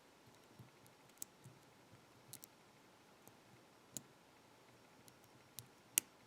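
Faint, sparse metallic clicks of a dimple lock pick tapping the pins inside a BASI six-pin dimple padlock, a few clicks spread a second or more apart, the sharpest near the end.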